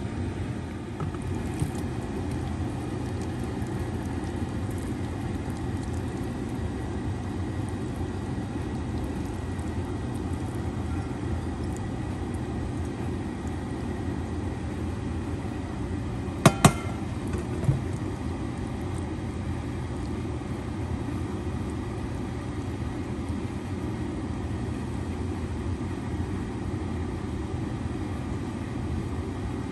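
Steady low mechanical rumble with a faint hum. About halfway through there is one sharp, ringing clink.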